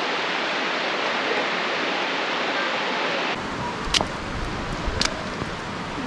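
Waterfall: falling water rushing with a steady hiss. About a third of the way in, the sound changes abruptly to softer water with a low rumble, and two sharp knocks about a second apart.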